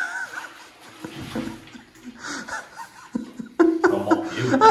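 A man laughing: soft chuckles at first, growing louder about three and a half seconds in.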